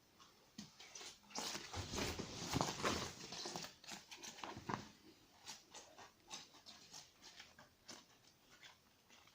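A cat pouncing and scrambling after a toy: a flurry of scratchy rustling and patter for a few seconds, then scattered light taps and scrapes.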